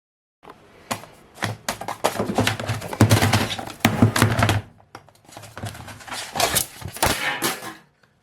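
A busy run of knocks, clicks and scrapes from hands working on small hardware, as of parts being pried and pulled loose to free a drive.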